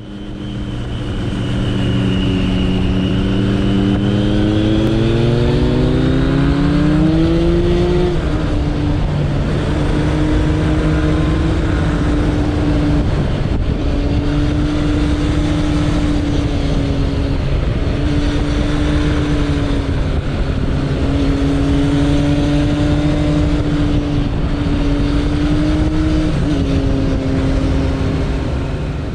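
Suzuki Bandit 1200's inline-four engine under way, heard from the rider's seat with wind noise. The engine note climbs steadily over the first several seconds, then holds at cruising pitch with a few brief dips.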